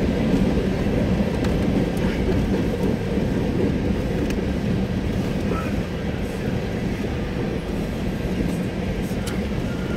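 Norfolk Southern freight train's hopper and tank cars rolling steadily past a grade crossing, heard from inside a car, with a few faint clicks along the way.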